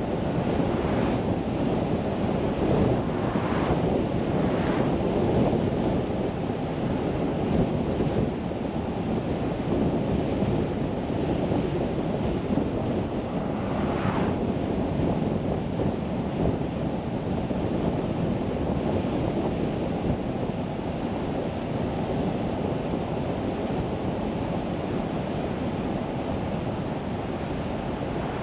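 Steady low rushing road and wind noise of a car driving, with a few brief faint hisses, the clearest about 14 seconds in.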